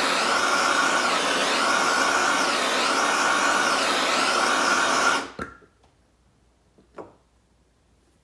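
Handheld gas blow torch burning with a steady hissing flame while heating a seized carburetor body, then cut off abruptly about five seconds in. A couple of faint clicks follow.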